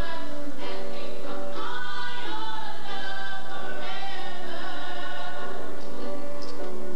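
Music: a choir singing held notes.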